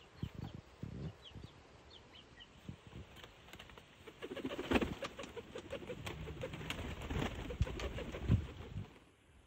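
Domestic pigeons cooing, a low rolling coo that starts about four seconds in, with a few wing flaps and thumps near the start.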